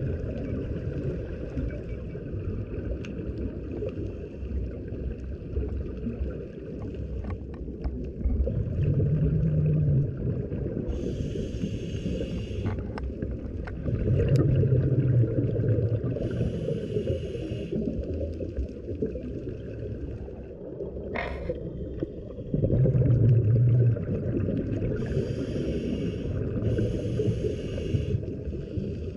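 Scuba diver breathing through a regulator, picked up underwater by the camera over a steady low rumble. Slow breaths come every five to eight seconds, alternating a louder low bubbling exhale with a hissing inhale.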